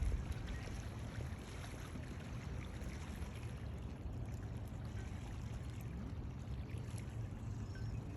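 Steady outdoor ambience by open water, mostly a low rumble with a fainter hiss above it, and a short knock right at the start.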